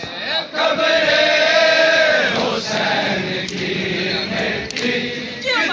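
Men's voices chanting a noha, a Shia mourning lament, in long held phrases.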